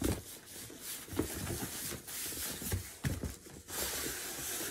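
Cardboard shipping box being handled and opened: the flaps rustle and scrape, with a few light knocks.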